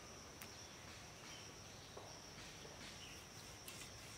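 Quiet outdoor background with a steady high-pitched insect drone and a few faint clicks.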